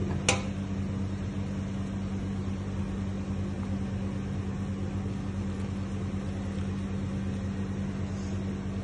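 Steady low mechanical hum of a kitchen appliance, with one sharp click just after the start. Under it, Arabic coffee is poured through a mesh strainer into a thermos flask.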